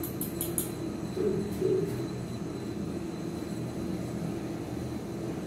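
Hand-held gas torch burning steadily under a traditional hand-cranked popcorn machine, a constant low rushing sound, with a few light clicks of loose corn kernels near the start.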